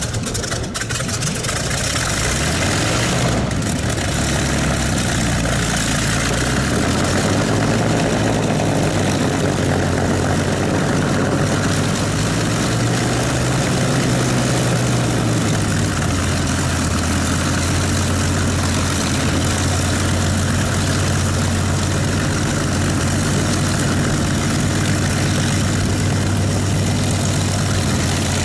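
Rolls-Royce Griffon V12 engine of a Supermarine Spitfire FR Mk.XVIIIe catching on start-up and running with its five-bladed propeller turning. The engine speed rises and falls unevenly at first, then settles into a steady idle about halfway through.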